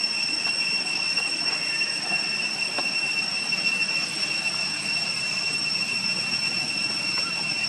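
Cicadas droning steadily at a high pitch, one unbroken shrill tone with fainter higher overtones over a hiss.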